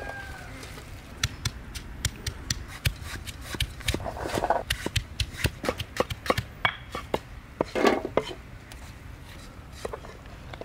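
Knife chopping vegetables on a wooden tree-stump block: a long run of quick, irregular taps.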